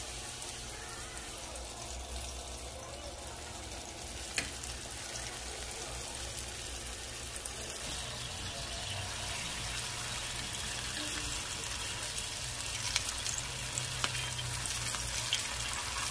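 Battered enoki mushroom clusters deep-frying in hot oil: steady sizzling, with a few sharp crackles, most of them near the end.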